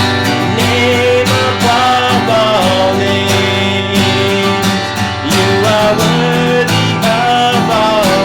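Acoustic guitar strummed steadily under a singing voice carrying a gliding melody: a worship song.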